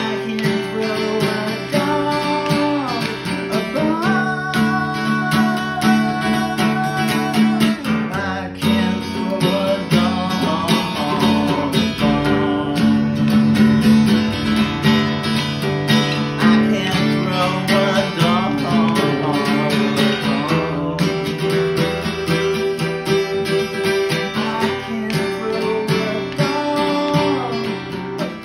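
Acoustic guitar strummed steadily in chords, with a man singing along over it.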